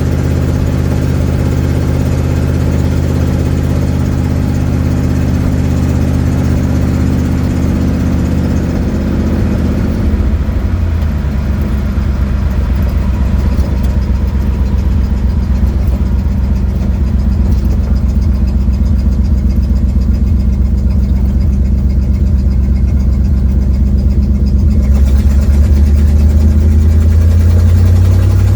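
1972 Ford Mustang's engine with a leaking exhaust, heard from inside the cabin while driving. It drones steadily, drops lower about ten seconds in, and rises in pitch near the end as the car accelerates.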